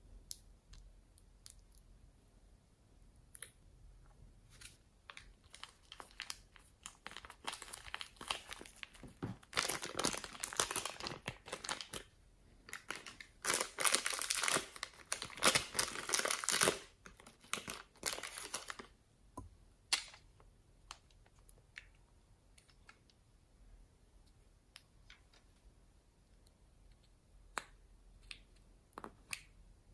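A small clear plastic bag crinkling while it is handled and emptied over the tray, a dense crackling that builds through the middle and peaks about halfway. Scattered small clicks and taps of a plastic pot and spatula come before and after it.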